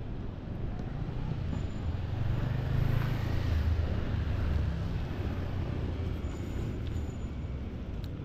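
A motor vehicle passing on the street: a low rumble with tyre noise that swells about two to three seconds in and then fades over the steady hum of city traffic.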